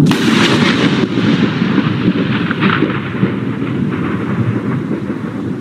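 Thunderclap with a long rolling rumble over rain, starting suddenly and slowly fading.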